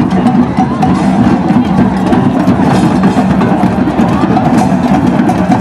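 Drum circle: many hand drums and other percussion playing together in a steady, dense rhythm.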